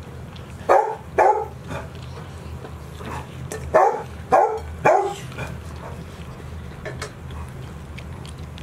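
A dog barking in two bursts: two short barks about a second in, then three more between about four and five seconds in.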